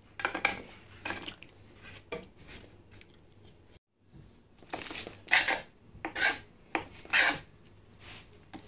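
Kitchen knife slicing through a bunch of spinach leaves onto a plastic cutting board, a sharp cut about every half second through the second half. Before that come softer knocks and scrapes as sliced meat is slid off the board into a bowl.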